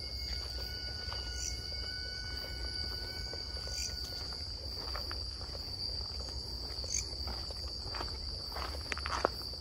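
A continuous high-pitched trill of night insects such as crickets, steady throughout. From about halfway in, footsteps on leaf litter sound every second or so.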